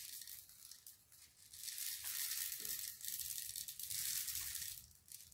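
Steel BBs pouring from a plastic bottle into the loading port of a Daisy Red Ryder BB gun: a continuous, hissing trickle of shot. It is faint at first, picks up about a second and a half in, and stops just before the end.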